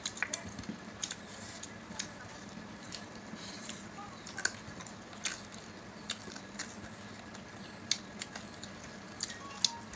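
Close-up eating sounds of two people eating chicken and rice with their hands: scattered sharp clicks and smacks of chewing and of fingers working food on ceramic plates, over a low steady hum.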